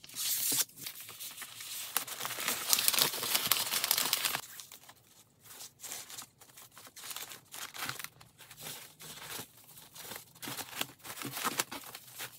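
Stiff florist's wrapping paper rustling and crinkling as it is folded and shaped around a bouquet, loud and continuous for the first four seconds or so. After that, lighter on-and-off rustles and crackles as a ribbon is tied around the wrapped stems.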